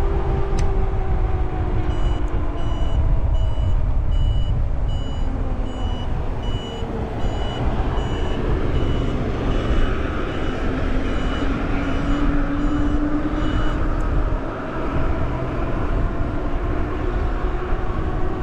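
Steady low rumble of wind and road noise on the move, with a repeated high electronic beep, about two to three beeps a second, starting a couple of seconds in and stopping a few seconds before the end.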